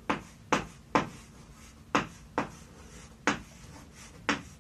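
Writing on a blackboard: about seven short, sharp taps and strokes at an uneven pace as Japanese characters are written.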